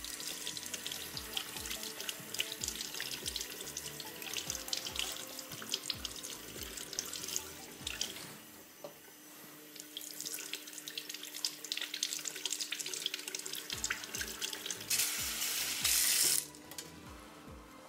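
Warm water running from a kitchen tap into the sink while black truffles are scrubbed under it with a mushroom brush, with many small scratchy clicks. About fifteen seconds in the water runs louder for a second or so, then stops suddenly as the tap is turned off.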